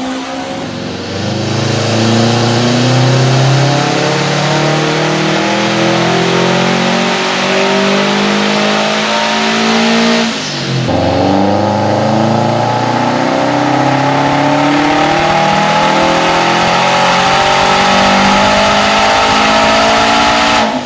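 Turbocharged 2015 Subaru WRX STI flat-four (EJ257) accelerating hard under load, its pitch climbing steadily. About halfway through the sound dips and drops in pitch at a gear change, then climbs again.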